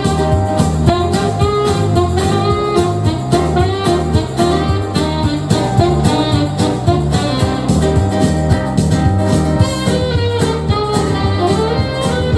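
Jazz music with horns over a steady beat.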